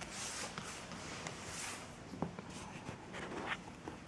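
Soft rustling with scattered small clicks and taps: camera handling noise as the camera is moved in close. The rustling is strongest in the first two seconds.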